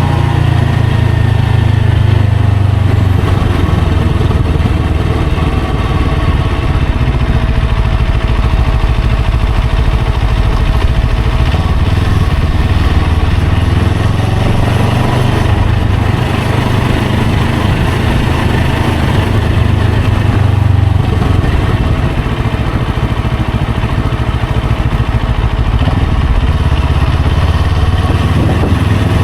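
Motorcycle engine running steadily while riding through traffic, its note shifting with the throttle a couple of times.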